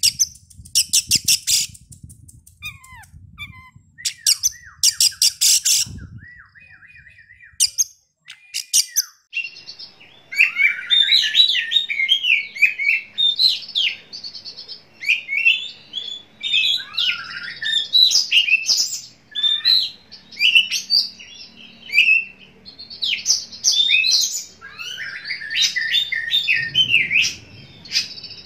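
Oriental magpie-robin (kacer) calling and singing: harsh rapid rattling bursts and a few short falling whistles in the first several seconds, then from about ten seconds in a continuous, varied song of quick whistled phrases.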